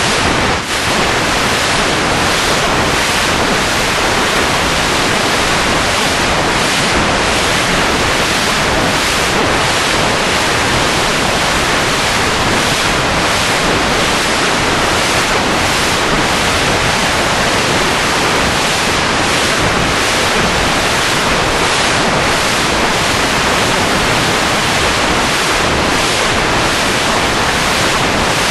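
Loud, steady rushing noise like static or surf, with a brief dip about a second in.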